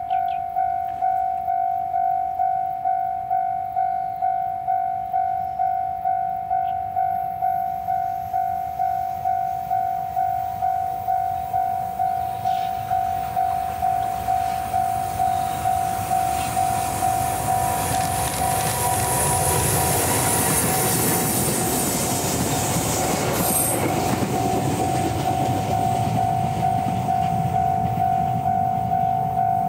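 A railroad crossing alarm rings steadily at about two strokes a second throughout. Over it, an EH500 electric locomotive hauling a ballast regulator and a multiple tie tamper runs past; its rumble and wheel noise build from about halfway and are loudest in the last third.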